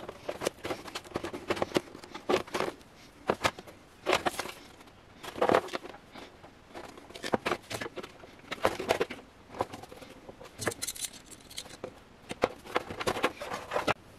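Irregular clicks, taps and short scrapes of small hard objects being handled, some in quick clusters.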